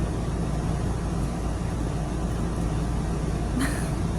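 Steady low rumbling background noise from an unidentified running machine, with a short brighter sound near the end.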